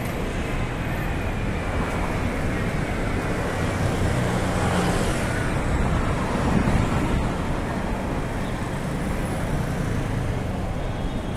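Street traffic: the engines of a city bus and cars passing close by over a steady hum of road noise, loudest a little past the middle.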